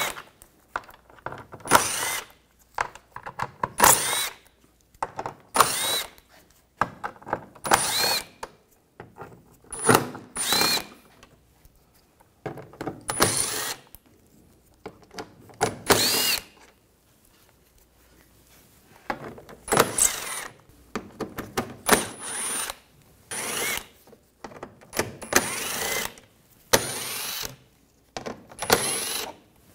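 Cordless power driver with a 7 mm socket running in a series of short bursts, each rising in pitch as the motor spins up, as it backs the screws out of the bumper cover and splash shield one after another, with brief pauses between them.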